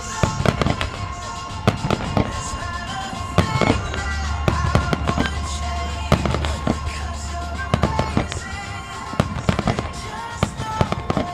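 Aerial firework shells bursting in rapid succession, sharp bangs every fraction of a second, over steady background music.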